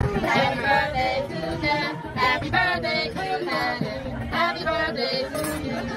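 Singing, with a woman's voice the most prominent.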